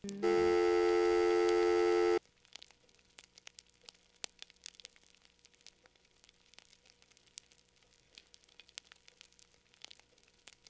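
A loud, steady electronic tone held for about two seconds, cutting off abruptly, followed by faint scattered crackling clicks.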